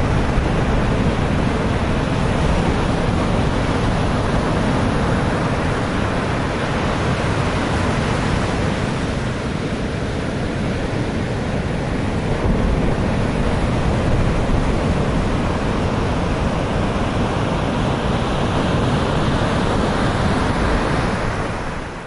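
Rough sea surf breaking against a concrete sea wall in a steady, dense wash of noise, with wind buffeting the microphone.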